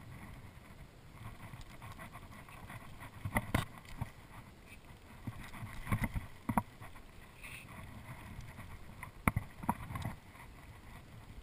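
Scattered knocks and bumps on a kayak as the paddler moves about, in clusters about three and a half, six and nine seconds in, over a low wind rumble on the microphone.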